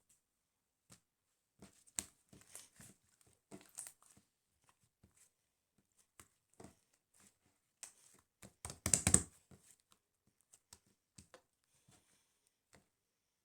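Sparse small clicks and handling noises in a small room, with a louder, dense run of clicks about nine seconds in.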